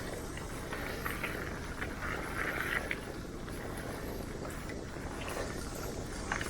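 Mountain bike riding down a dirt trail: steady rumble of tyres and wind on the camera microphone, with rattles and sharp clicks from the bike over bumps, one louder click near the end.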